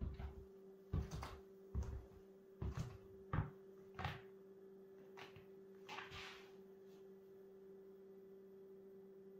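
Footsteps of Adidas F10 TRX firm-ground soccer cleats with moulded studs on a laminate floor: about a dozen knocks and clacks over the first six seconds, then only a faint steady low hum.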